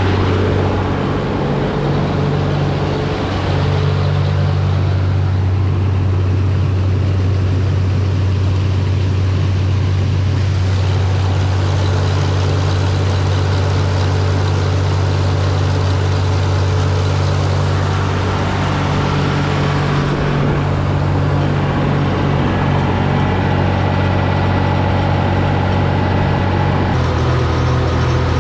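Combine harvester running steadily while cutting wheat: a constant low engine drone with threshing and machinery noise on top that swells and eases a few times.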